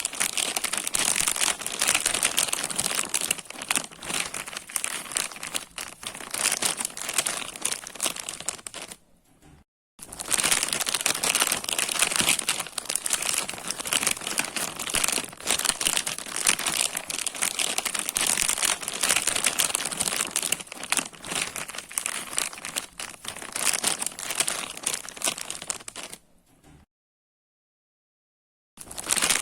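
Plastic bag being crinkled and crumpled by hand, a continuous crackling that stops briefly about nine seconds in and again for about two seconds near the end.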